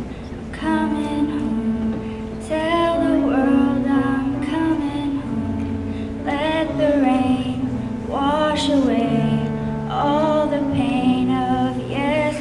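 Music: a singer holding long, wavering notes over a slow instrumental accompaniment.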